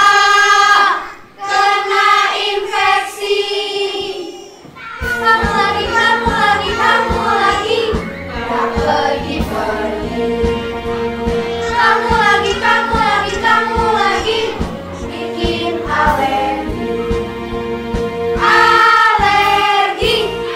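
A group of children's voices singing a song, with a backing track and a steady beat coming in about five seconds in.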